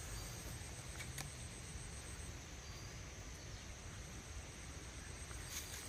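Steady high-pitched insect chorus over a low rumble, with a couple of faint clicks, one about a second in and one near the end.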